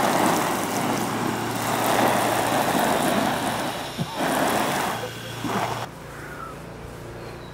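Garden hose spraying water hard onto a sleeping bag's waterproof shell to simulate heavy rain: a dense spattering hiss that breaks briefly about four seconds in and stops about six seconds in.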